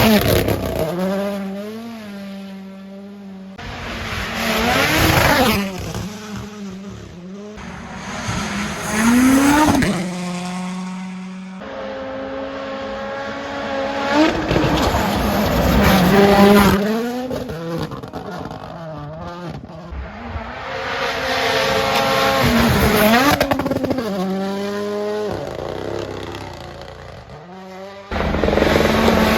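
A series of WRC Rally1 cars passing one after another at full throttle, their turbocharged four-cylinder engines climbing in pitch through the gears and dropping as each car goes by. Each pass swells to loud and then fades before the next.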